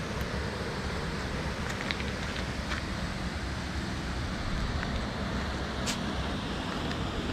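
Steady rushing of a river running over rocks and a small waterfall, with a few brief high chirps about two seconds and six seconds in.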